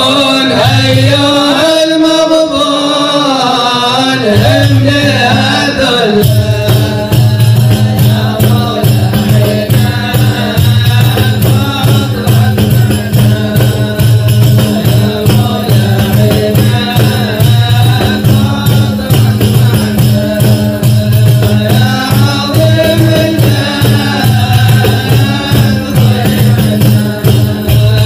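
A group of men singing an Arabic devotional qasidah in unison. About six seconds in, frame drums come in with a steady, fast beat under the singing.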